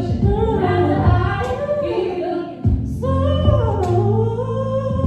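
Live band rehearsing a song: female voices singing a melody with wavering held notes over steady low bass notes.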